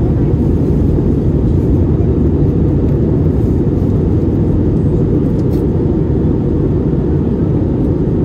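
Steady, loud cabin rumble inside an Airbus A321neo airliner in flight, the noise of its Pratt & Whitney geared turbofan engines and airflow heard from a window seat, deep and even with no changes.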